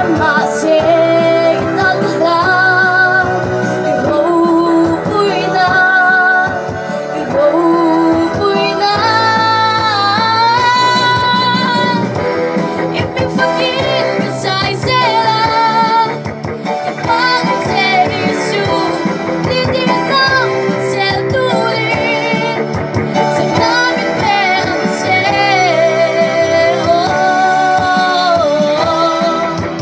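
A girl singing a song into a microphone through PA speakers, backed by a live band of keyboard, electric guitar, bass guitar and electronic drum kit. Her long held notes carry a clear vibrato.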